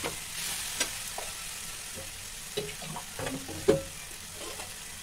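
Vermicelli and spiced onion-tomato masala frying and being stirred in a non-stick pan with a metal spatula: a soft steady sizzle with scraping and scattered clicks of the spatula on the pan, the sharpest a little over three and a half seconds in.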